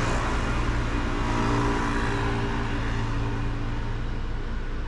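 Street traffic: a motor vehicle's engine hum with road noise, which dies away about four seconds in.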